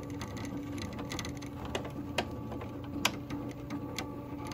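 SWF MAS-12 embroidery machine running a contour trace with a cap frame: the frame drive hums steadily and gives a few sharp clicks as the cap frame moves around the outline of the design without stitching.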